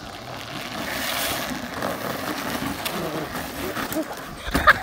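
Plastic wheels of a low drift trike rolling and skidding on asphalt: a scraping hiss that grows louder over the first second, then a few knocks near the end as the trike spins out and tips over.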